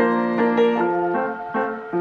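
Piano music: notes and chords struck about twice a second, each left to ring and fade before the next.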